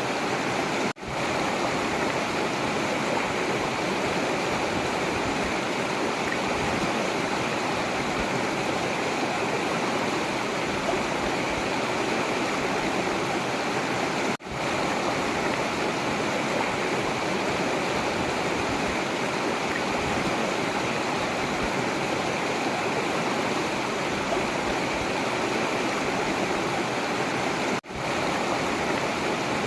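Forest river water rushing and splashing steadily, cutting out for a split second three times.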